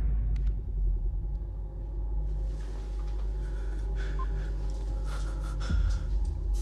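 A deep, steady low rumble with a faint hum above it, which swells louder near the end.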